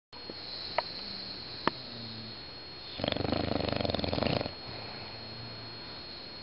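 A dog snoring: soft breaths, then one loud snore about three seconds in that lasts about a second and a half.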